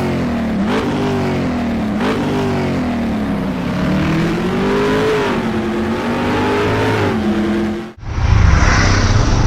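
Vehicle engine revving up and down in repeated smooth swells. About eight seconds in it cuts off abruptly and gives way to a steady low motorcycle engine drone with a hiss over it.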